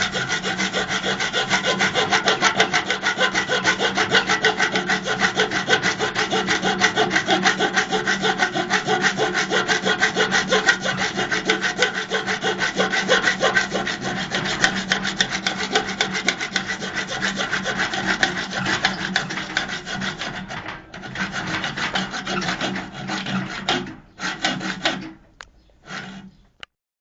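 Rapid, rhythmic rasping strokes over a steady low hum. The rasping breaks up into short stretches near the end and then stops.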